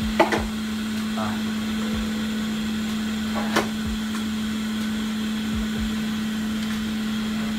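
Steady hum at one constant pitch from a small motor or fan on the electronics repair bench, with a couple of small tool clicks, about a quarter second in and about three and a half seconds in.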